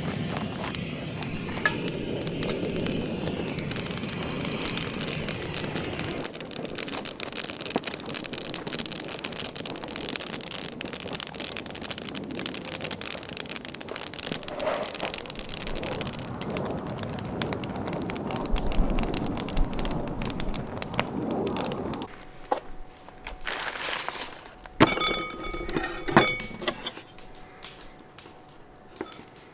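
A long gas torch wand hisses steadily for the first several seconds as it lights the fire, then kindling and a wooden crate burn with dense, sharp crackling. Near the end, a few knife strikes knock on a wooden cutting board.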